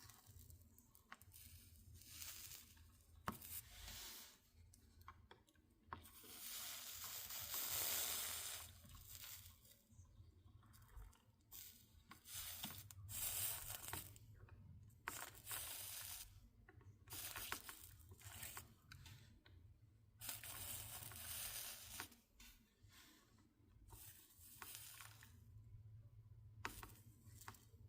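Faint sizzling of a soldering iron melting solder and flux along the copper-foiled seams of a stained glass panel, in irregular bursts lasting from about half a second to two seconds. A low steady hum runs underneath.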